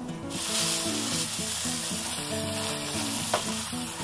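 Plain pounded chicken breasts frying in hot olive oil in a pan, a steady loud sizzle that starts suddenly just after the start. Faint guitar music plays underneath.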